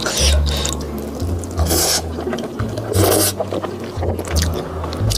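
Close-miked slurping and chewing of spicy fried rice noodles. Three short hissing slurps come about a second and a half apart.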